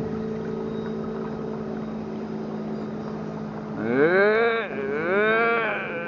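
Steady hum of a motorboat engine running. About four seconds in, a loud pitched sound with many overtones starts, sweeping up and down in long swoops.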